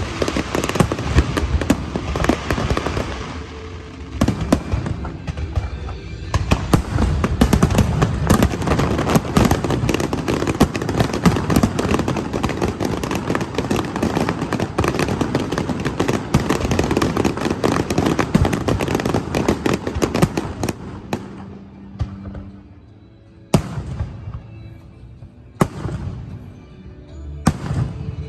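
Fireworks display: a dense, continuous barrage of crackling and bangs from many shells bursting. About 21 seconds in it thins out to a few single loud bangs.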